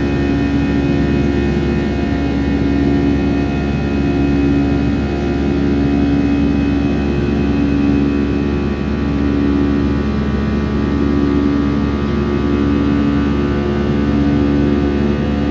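Jet airliner engines and airflow heard from inside the passenger cabin: a steady drone of several low tones over an even rushing noise.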